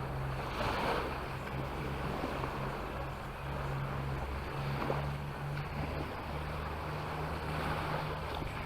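Sea waves washing onto the beach, swelling and easing, with wind rumbling on the microphone.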